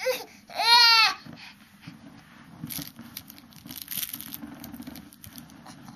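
A baby gives one short, high-pitched squeal about half a second in, rising then falling in pitch. Rustling and crinkling follows as he squirms against the padded fabric of his play ring.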